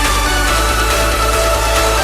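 Background electronic music: held tones over a steady bass.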